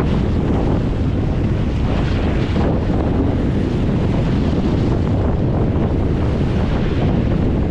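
Strong wind buffeting the microphone, over steady surf.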